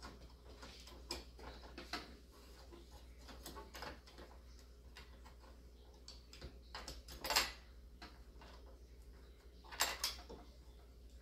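Scattered clicks and knocks of computer hardware being handled, loudest about seven seconds in and again near ten seconds, over a steady low hum.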